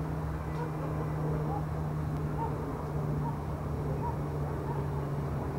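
Distant city night ambience heard from a hillside: a steady low traffic rumble with a constant low hum, and faint short calls repeating about once a second over it.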